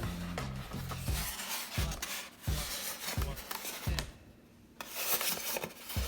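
Packaging being handled and rubbed during an unboxing, a rustling, rasping scrape that eases off briefly past the middle. Background music with a steady low beat plays throughout.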